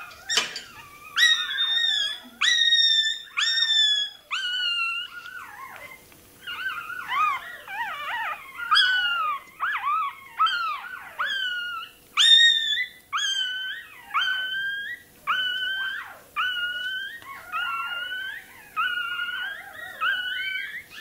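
Russian Toy terrier puppy crying: a rapid run of short, high-pitched squealing yelps, about one and a half a second, each rising sharply and then holding or sliding down. There is a brief lull about five seconds in. The cries are distress from a tail-docking procedure.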